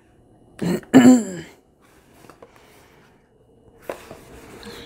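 A person clearing her throat once, about a second in, a short rough burst running into a voiced rasp. Fainter rustling and a few light clicks of sketchbook pages being thumbed follow near the end.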